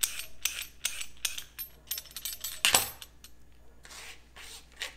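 Metal vegetable peeler scraping down a raw carrot in quick strokes, about three a second. About two and a half seconds in comes one louder clack as the peeler is put down on the plastic cutting board, followed by a softer rustle of carrot peel.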